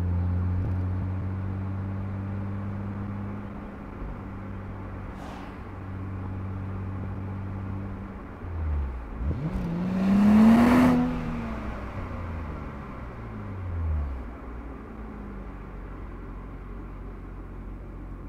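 2023 Nissan Z's twin-turbo 3.0 L V6 running on the road. Its steady note dips, then climbs to its loudest about ten seconds in with a brief rush of noise, and falls away again as the car goes past.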